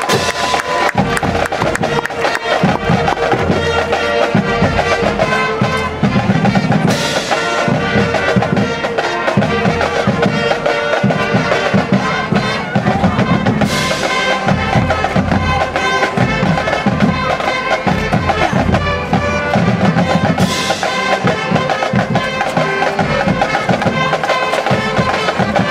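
High school marching band playing a brass-and-drums number, with three loud crashes about seven seconds apart.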